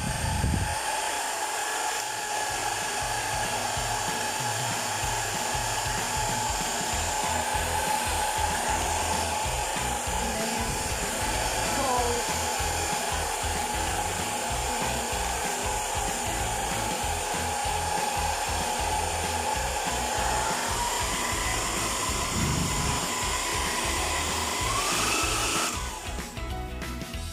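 AOKAI ionic hair dryer running: a steady rush of blown air over a high motor whine. The whine wavers briefly about halfway through and rises near the end before the dryer cuts off, after which music plays.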